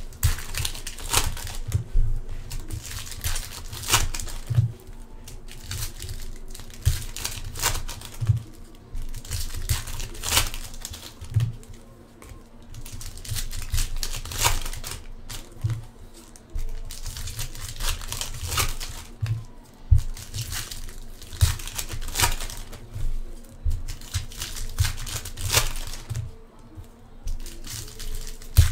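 Foil trading-card pack wrappers being torn open and crinkled by hand, one pack after another, in a continuous run of short crackles with dull low knocks of handling underneath.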